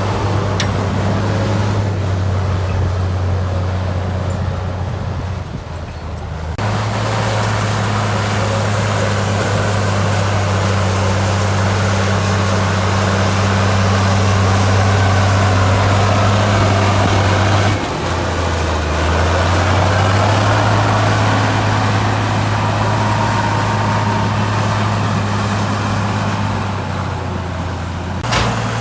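Diesel engine of heavy earthmoving machinery running steadily under a noisy mechanical clatter, its pitch and level changing abruptly about a quarter of the way in and again past the middle.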